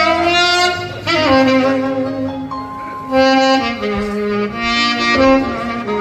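Saxophone playing a slow melody of long held notes, sliding up into a note about a second in.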